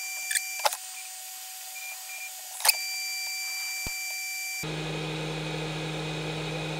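Steady high electrical whine and hiss with two faint clicks, then about four and a half seconds in a steady low hum starts abruptly.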